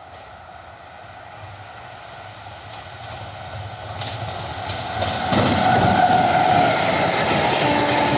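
Train approaching: a rumble that grows steadily louder and jumps up sharply about five seconds in as the train draws close.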